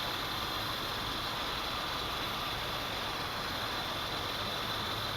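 Steady outdoor background hiss with a faint low hum underneath, even in level throughout; no thunder is heard.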